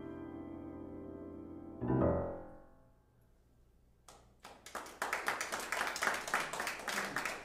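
Steinway grand piano ending a piece: a held chord rings, a low bass chord is struck about two seconds in and dies away. After a short lull, an audience starts clapping, a few claps at first and then full applause.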